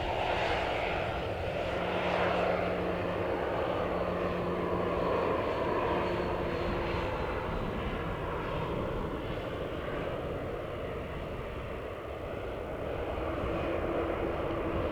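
Airliner engines running, a steady broad rumble with a few faint held tones.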